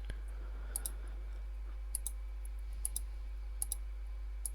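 A button clicked repeatedly, each press making a quick double click of press and release, about one press a second, over a steady low hum. The presses step the PLC program's input through its options.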